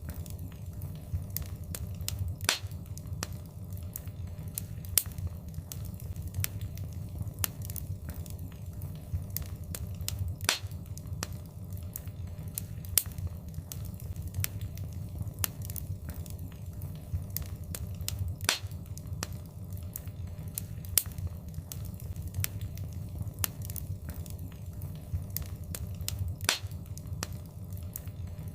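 Wood fire crackling in a fireplace: a steady low rumble of flames under constant small snaps and pops, with a louder pop about every eight seconds.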